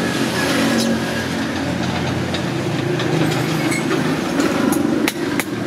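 A steady low engine drone, with a few sharp clicks near the end.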